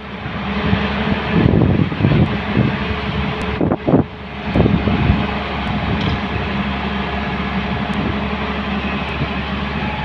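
Diesel engines of a Hyundai 215L crawler excavator and an ACE AX124 backhoe loader running at work, with several uneven surges under load in the first half, then running steadily.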